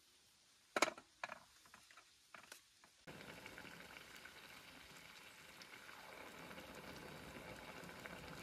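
A few sharp clicks and knocks in the first three seconds, then a pot of soup simmering on a portable camping stove: a steady hiss for the rest.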